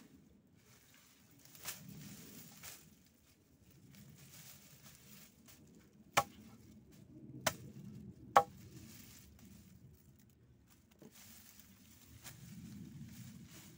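Rustling of freshly dug lemongrass stalks, leaves and roots being handled and bundled. Three sharp clicks come between about six and eight and a half seconds in.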